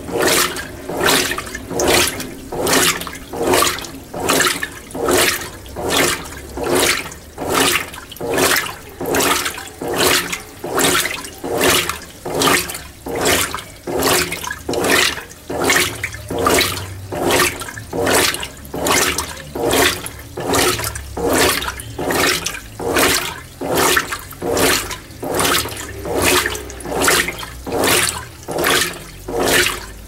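Mueller Energy 8 kg top-load washing machine agitating a load of whites at a low water level: rhythmic sloshing surges of water and clothes about once a second as the agitator swings back and forth, with a steady low hum underneath.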